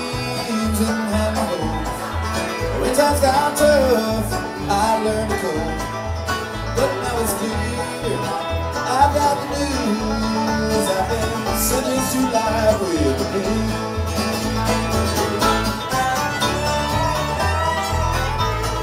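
Live bluegrass band playing an instrumental passage: acoustic guitar, banjo and fiddle over a steady bass pulse.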